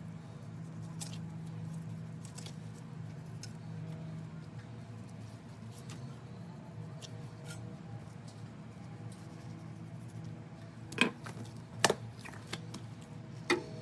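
Raw brisket being handled and trimmed with a boning knife on a plastic cutting board: soft handling noises, then a few sharp clicks in the last few seconds as the knife is taken up and works against the board. A steady low hum sits underneath.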